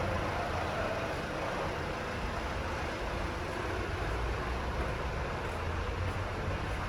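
Vehicle running: a steady low rumble under an even hiss, with no change in pitch.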